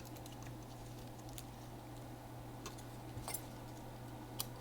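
Quiet low steady hum with a few faint, scattered clicks and light taps from a laptop logic board and small tools being handled on a workbench.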